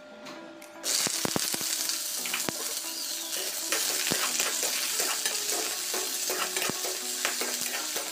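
Sliced onions hitting hot oil in a metal kadai: a sudden loud sizzle starts about a second in and keeps going steadily, with scattered knocks and scrapes of a perforated metal skimmer stirring them in the pan.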